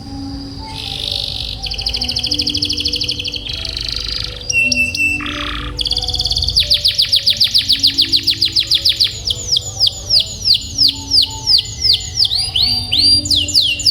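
Domestic canary singing: bright chirps and whistles, then from about halfway in a long roll of rapidly repeated falling notes, changing to a new trill near the end.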